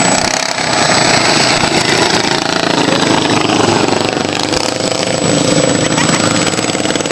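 Racing lawn mower engines running, loud and steady.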